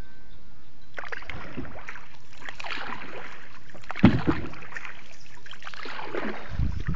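Paddle strokes swishing and splashing as a small boat is paddled through water, roughly one stroke every second or two, with a sharp thump about four seconds in.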